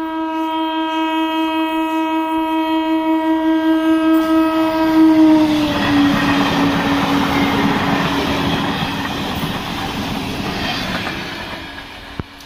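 EMU train's horn sounding one long continuous blast as the train approaches. As the train passes, the horn's pitch drops a little and the rush and clatter of the coaches over the rails comes in. Both fade away near the end.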